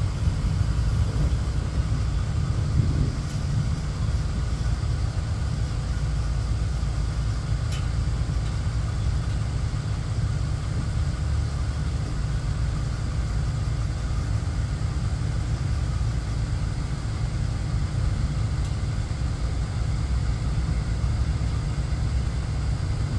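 Steady low rumble of a four-engine jet airliner at cruising altitude, heard from the ground far below.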